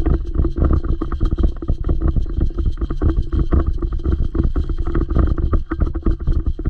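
Airsoft electric gun firing a long full-auto burst: a fast, even rattle of shots over the steady whine of the gearbox, lasting several seconds and stopping near the end.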